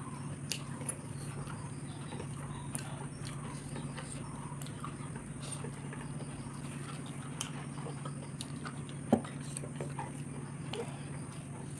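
Close-up eating sounds: soft chewing and scattered small mouth and finger clicks as rice is eaten by hand, with one sharper click about nine seconds in. A steady low hum runs underneath.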